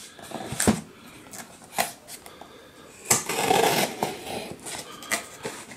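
A pocket knife cutting open a cardboard parcel: scattered short scrapes and taps as the blade works along the taped edge, with one longer rasping cut about three seconds in that lasts about a second.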